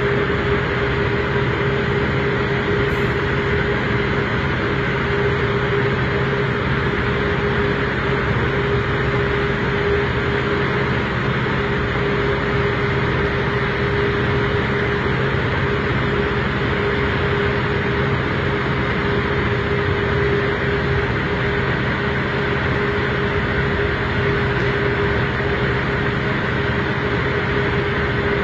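Steady machinery drone with a constant mid-pitched hum riding on it: fairground machinery running, such as a generator or a ride's power unit.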